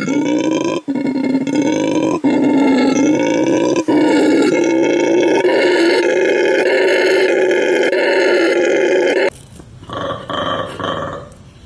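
A long animal call holding one steady pitch for about nine seconds, broken by a few brief cuts. Near the end it is followed by a short run of separate, higher calls.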